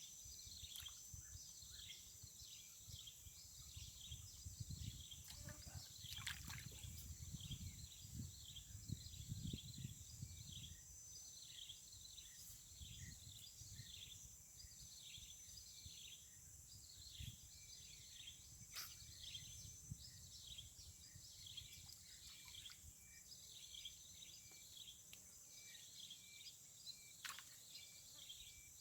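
Faint outdoor ambience by the pond: a rapid, continuous series of short high chirps, each falling in pitch, about two to three a second, over a steady high hiss and a low rumble.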